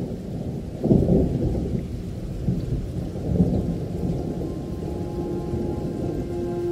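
Thunderstorm ambience: low rolling thunder over steady rain, swelling about a second in and again around three and a half seconds. Sustained musical tones begin to come in over it near the end.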